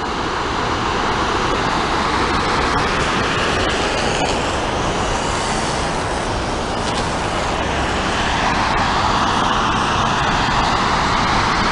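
Steady rush of water pouring over a river weir, a continuous loud roar with no pitch.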